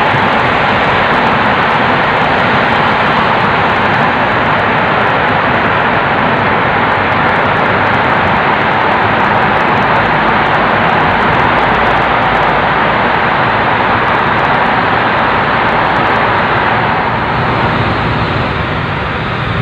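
Steady, loud rushing noise of a car on the move: tyre and wind noise with no distinct events, easing slightly near the end.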